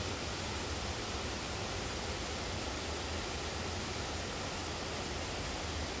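Waterfall and mountain stream rushing steadily, running full after rain: an even, unbroken roar of water.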